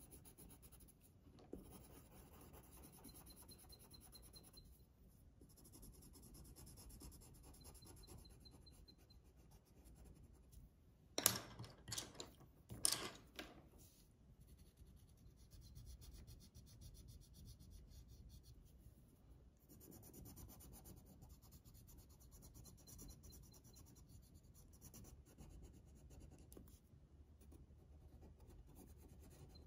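Faint scratching of a coloured pencil shading on paper. About eleven seconds in, a short run of sharp clacks as pencils are put down and picked up, changing from pink to yellow.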